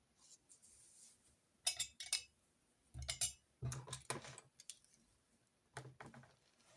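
Small hard objects being picked up and set down on a desk, a run of irregular clicks and clatters in three clusters with light thumps.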